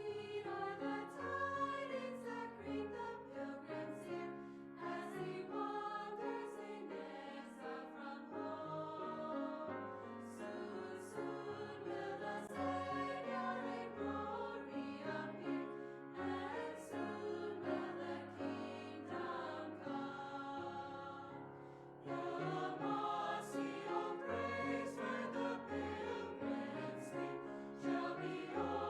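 Background choral music: a choir singing over a steady rhythmic accompaniment, growing louder about three quarters of the way through.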